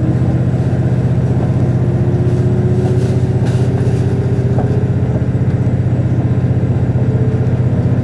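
KiHa 48 diesel railcar running, heard inside the passenger cabin: a loud, steady low drone of engine and running noise, with a faint tone rising slowly in pitch for a few seconds.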